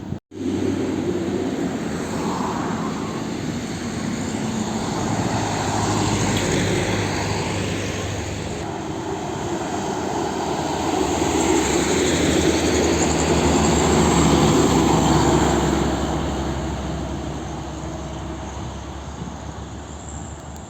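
Heavy diesel truck traffic passing on the road: engines running with a steady drone and tyre noise, swelling louder twice and fading away toward the end.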